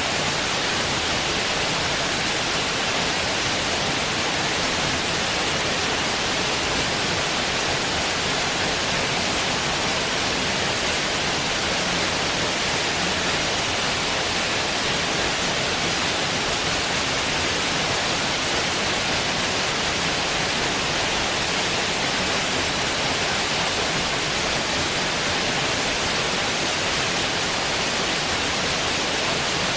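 Steady, unchanging hiss of noise spread evenly from low to very high pitch, with no distinct events.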